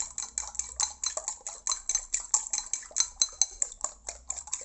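Metal fork beating two raw eggs in a ceramic bowl, clinking against the bowl in rapid, even strokes, several a second.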